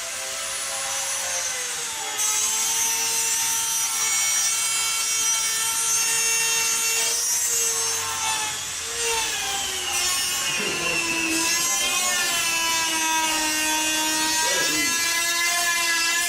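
A high-speed rotary tool with a cutting disc cuts through a computer case panel, a steady high whine over a rasping cut. Its pitch drops about halfway through, as if slowed under load, and rises again near the end.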